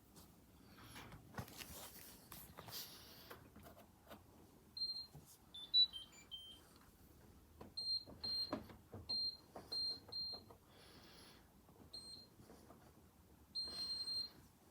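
Washing machine control panel beeping as its buttons are pressed to set a programme: about ten short high beeps at one pitch, a quick run of lower tones after about six seconds, and one longer beep near the end. Faint clicks and handling sounds come before the beeps.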